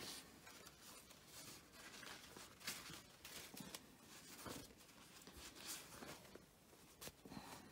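Faint rustling of paper napkins being shifted and handled on a pile, a few soft rustles at irregular moments.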